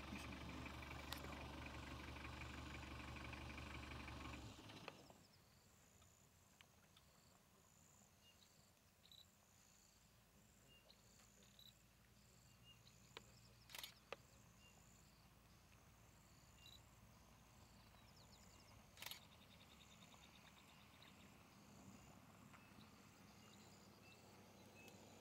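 A low steady hum stops abruptly about five seconds in. After that, near silence with faint outdoor ambience, a few faint high chirps and two sharp clicks.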